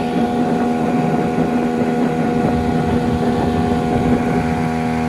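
A 15 hp Speed outboard motor running steadily at a constant pitch while driving the boat along, with wind noise on the microphone.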